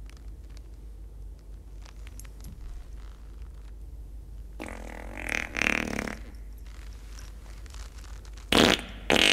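Comedic fart sound effect: a buzzy fart of about a second and a half around five seconds in, and a second, louder one starting near the end.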